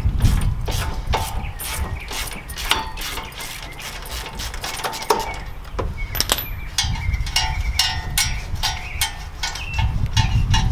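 Ratchet wrench clicking in quick, uneven runs of strokes while it turns a lower shock-absorber bolt (17/19 mm), over a low rumble.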